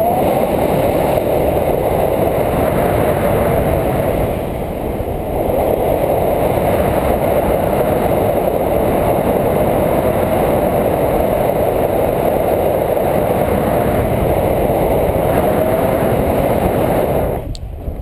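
Wind noise from paraglider flight buffeting an action camera's microphone, a steady rushing that drops away abruptly just before the end with a click.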